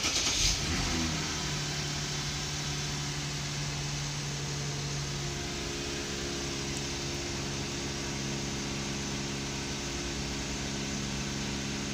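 Lexus GS350's 3.5-litre V6 starting at the press of the button, catching at once and rising to a fast idle, then idling steadily; the idle settles a little lower about five seconds in.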